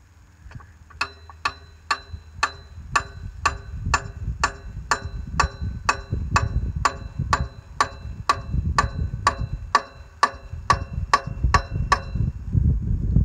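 Evenly spaced metallic taps, about two a second, each ringing briefly at the same pitch, over a low rumble. They start about a second in and stop near the end.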